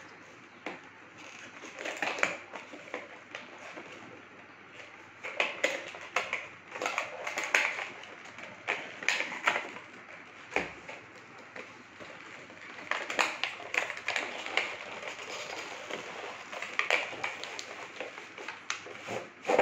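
A cardboard shipping box being torn open by hand: irregular tearing, crinkling and scraping of cardboard and packing tape, with scattered sharp crackles.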